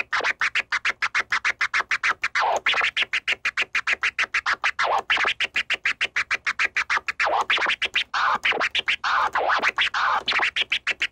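Sixteenth-note chirp scratches on a scratched sample, played with no beat underneath: a rapid, even run of short chopped cuts, about six a second, with the pitch sweeping up and down as the platter is pushed back and forth.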